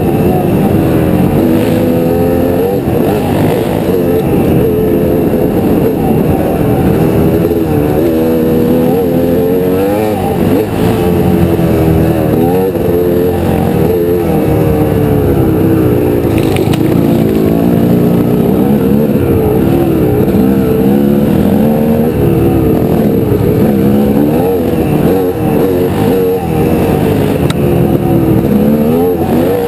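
Honda CR250 two-stroke dirt bike engine on the move, revving up and down constantly with the throttle, its pitch rising and falling every second or two.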